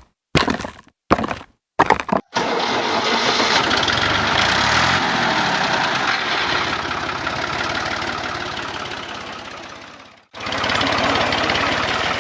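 Small motor of a DIY miniature machine running with a fast, even buzz. It is switched on and off in short bursts at first, then runs for about eight seconds, slowly growing weaker. It cuts off briefly and starts again near the end.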